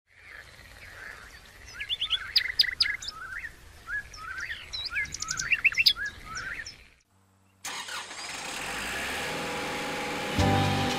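Songbirds chirping and singing for about seven seconds. After a brief silence, a tractor engine runs steadily and grows louder near the end.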